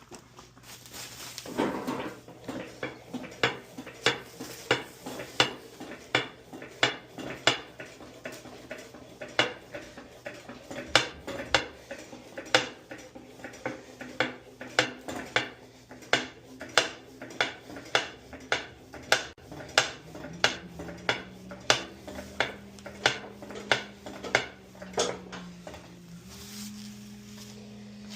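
Sharp metallic clicks and clinks repeating about twice a second: hand tools working against metal parts of a Craftsman lawn mower. A faint steady hum comes in near the end and steps up in pitch.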